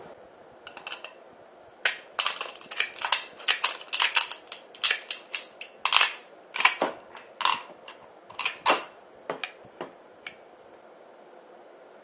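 Tin snips cutting through a ribbed steel food can: a quick, irregular run of sharp metallic snips and crunches. It starts about two seconds in and stops about ten seconds in.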